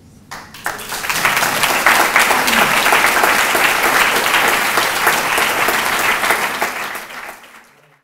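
Audience applauding, starting about half a second in and fading out near the end.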